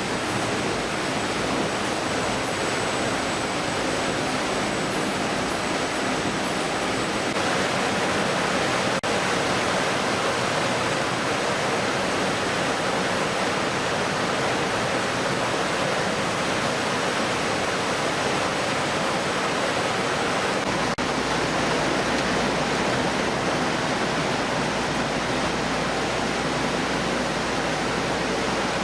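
Steady rushing of flowing water, an even hiss with no breaks. A low rumble joins about two-thirds of the way through.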